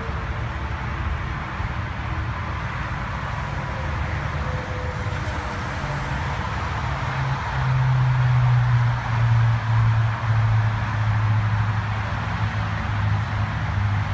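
A motor vehicle running, a steady low rumble with noise over it that grows louder about halfway through.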